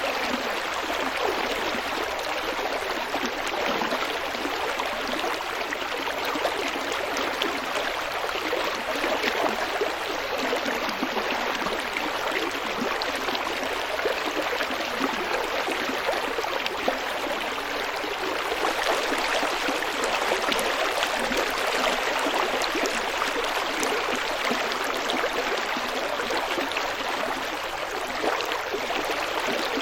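A small stream flowing steadily, water babbling and gurgling over stones.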